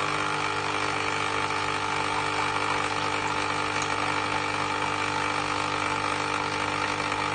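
Nescafé Dolce Gusto Mini Me capsule coffee machine's vibratory water pump running with a steady, even hum, pushing cold water through the machine on a first-use rinse cycle.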